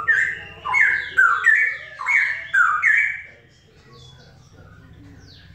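Straw-headed bulbul singing a loud burst of rich, bubbling whistled notes, each phrase a quick downward sweep, for about three seconds before stopping.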